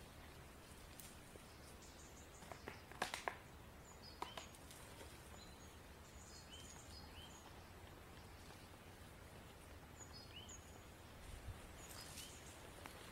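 Quiet woodland ambience with a few short, high bird chirps scattered through it. A cluster of sharp cracks about three seconds in and another a second later, like twigs snapping underfoot.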